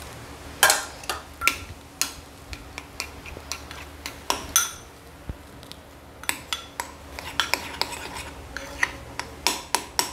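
Metal spoon stirring and scraping a thick dough of coconut flour and boiling water in a ceramic bowl, clinking against the bowl in quick, irregular strikes that come closer together in the second half.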